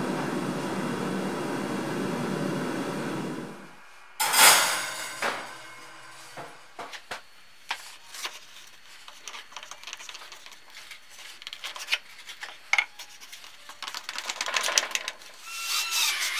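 Steady rushing noise of a charcoal forge fire, which cuts off after about three and a half seconds. Then a sharp knock, scattered light clicks and taps of a steel blade and wooden block being handled on a workbench, and near the end a cordless drill whining up as it drives a screw into a wooden handle scale.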